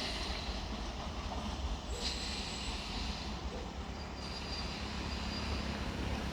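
MEMU electric multiple-unit train running with a steady low rumble from its wheels on the track. There are brief, faint high squeals about two seconds in and again around four seconds in.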